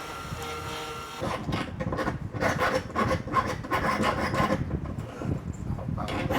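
Quick rasping strokes, like a hand file worked back and forth on metal, for about three seconds starting a second in, over a steady hum.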